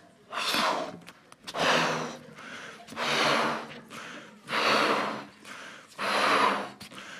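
A man blowing hard into a balloon to inflate it by mouth: five long, forceful exhalations about a second and a half apart, with quieter in-breaths between them.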